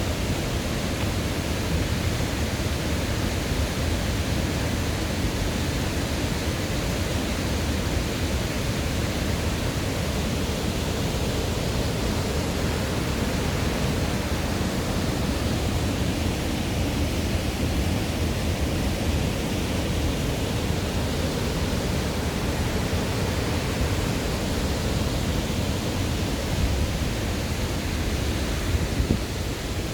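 Steady rushing of a mountain stream and waterfall: an even, unbroken wash of water noise.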